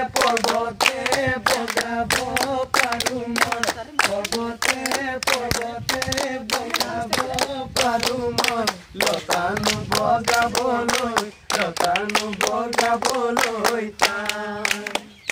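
A group of schoolchildren singing a song together in unison while clapping their hands in a steady rhythm.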